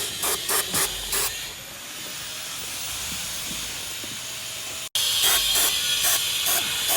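Aerosol brake cleaner sprayed in short hissing bursts over a steadier hiss, about four quick squirts in the first second and a half and another run of squirts after a sudden cut about five seconds in, degreasing a freshly welded differential.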